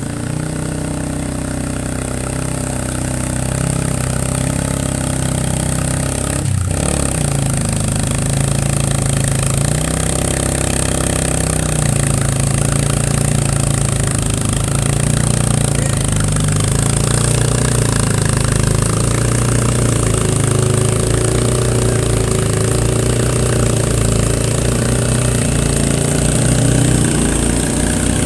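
Heavy motorcycle engine running steadily under load, driving a long shaft off its rear wheel that turns a flour mill's belt pulley.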